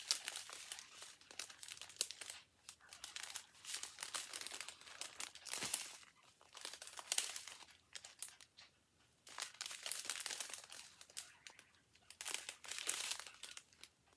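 Small plastic bags of diamond-painting drills crinkling as they are handled and sorted, in bursts with short pauses between them.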